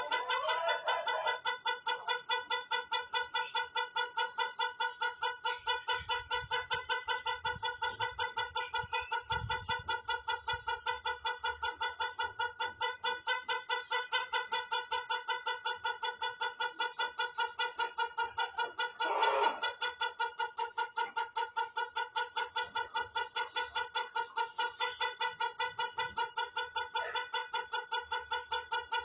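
Rooster crowing in one extremely long, unbroken call that holds the same pitch and pulses about four times a second, with a brief rougher note about two-thirds of the way through.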